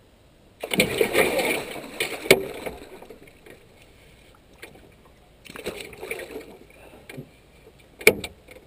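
A large Queensland grouper thrashing and splashing at the surface beside a boat as it is released, in a sudden burst of churning water lasting about two seconds, then a shorter splash, with a few sharp knocks.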